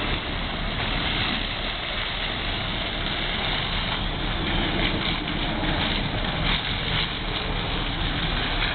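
Steady rumble and hiss of a fire engine running at a house fire, its engine and pump going while hoses spray water on the house.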